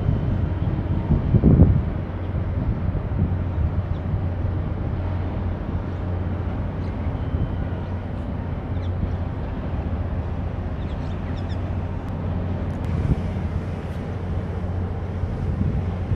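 Low steady engine drone from ships passing close by, with wind buffeting the microphone in a gust about one and a half seconds in. A few faint bird chirps come in the middle.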